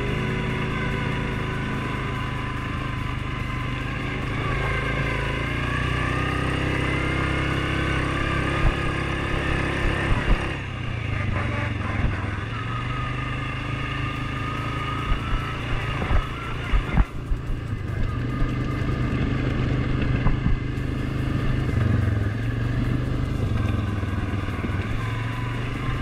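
ATV engine running as the quad rides a dirt trail, its pitch rising and falling with the throttle. There are a few short sharp knocks and rattles, most of them in the middle stretch.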